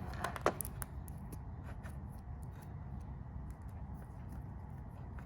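Faint handling clicks and ticks from a Cat6 cable and hand tools being picked up and moved, with a few sharper clicks about half a second in, over a low steady background noise.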